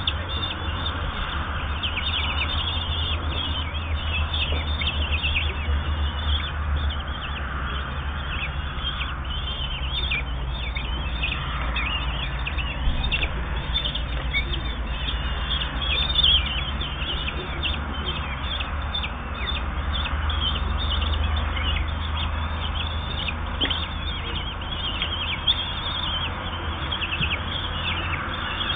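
Common kestrel chicks, 8–10 days old, giving rapid high-pitched begging calls non-stop while being fed, many short falling chirps overlapping. A steady low hum runs underneath.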